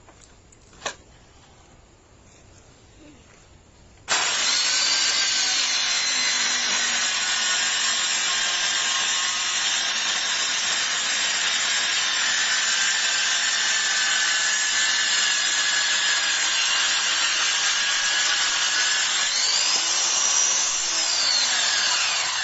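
Electric circular saw starting abruptly about four seconds in and running through wood steadily, a dense whine with faint tones. Near the end its pitch rises and falls back as the cut loads it. A single sharp click comes about a second in, before the saw starts.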